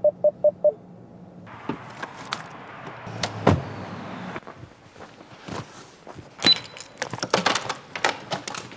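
A quick run of short electronic beeps, then a series of knocks, clicks and door-like thunks, the loudest about three and a half seconds in, with a busy cluster of clicks near the end.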